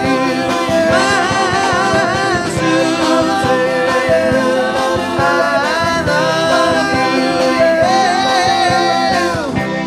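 Singing of a 1960s pop song over backing music with a steady beat; near the end the held notes slide down in pitch as the song winds down.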